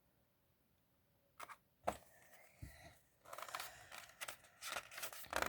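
Pages of a picture book being handled and turned: after a quiet start, a couple of sharp taps, then a run of paper rustling and crinkling.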